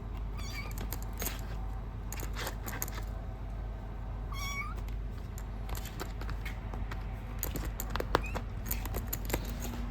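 Young kitten mewing, high-pitched and short, about half a second in and again around four and a half seconds, with a faint rising mew near the end. A scatter of sharp clicks runs under it.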